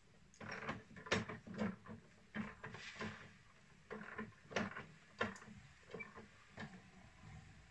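Scattered light clicks and knocks at an irregular pace from a backpack sprayer being carried and worked while a fruit tree is sprayed.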